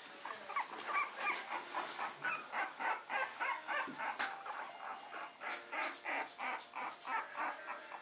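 Litter of 17-day-old puppies whimpering and squeaking: many short, high calls, a few a second, some overlapping, starting about half a second in.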